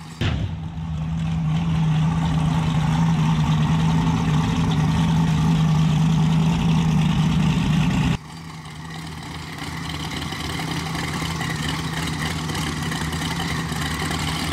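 Drag race car engines running steadily at idle while staging: a loud, even engine sound for about eight seconds, then a sudden drop to a quieter engine idle that slowly grows louder.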